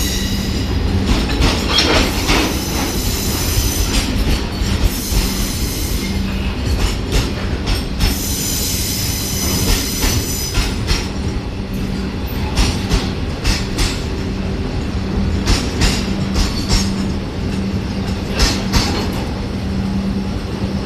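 Long freight train of steel wagons rolling past, its wheels clicking over rail joints in a repeating clickety-clack. High-pitched wheel squeal comes in long stretches, over a steady low hum.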